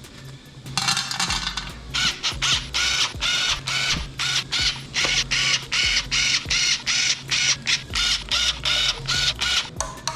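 Ratchet wrench being worked back and forth in quick, even strokes, clicking about two to three times a second as it drives in the oil pan bolts, with steady background music underneath.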